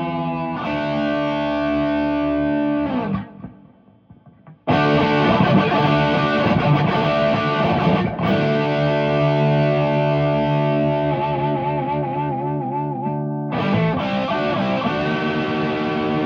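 Warmoth superstrat electric guitar played through distortion: sustained, ringing chords. About three seconds in the sound is cut off for a second and a half, then a new chord is struck; later a held chord wavers with vibrato before another chord is struck.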